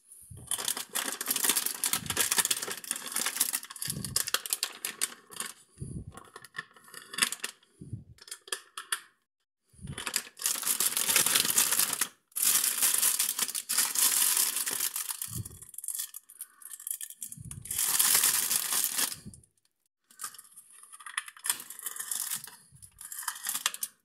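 Plastic bags and food wrappers rustling and crinkling as they are handled and moved, in bursts of a few seconds with short pauses and a few soft knocks.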